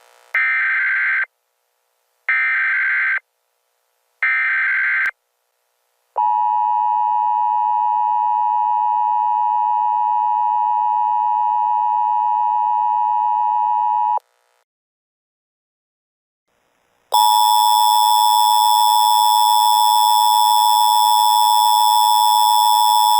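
Emergency Alert System signal for a Child Abduction Emergency. Three short bursts of SAME header data about two seconds apart are followed by the steady two-tone attention signal for about eight seconds. After a pause of about three seconds, a second, harsher steady alert tone starts and holds.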